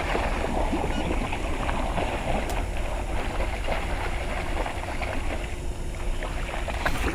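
A setter splashing as it runs through a shallow river, the splashing growing fainter as it gets farther off, over wind rumbling on the microphone.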